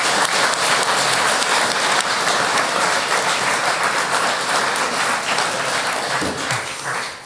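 An audience applauding, dying away near the end.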